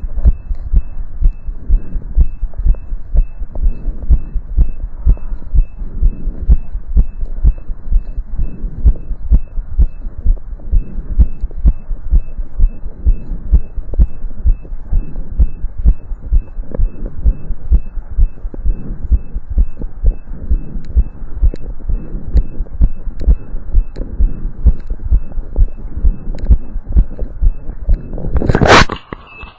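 Human heart sounds heard through a stethoscope during exercise: a fast, regular lub-dub heartbeat over a low hum. Near the end a loud scraping burst covers it, and the beats then drop out.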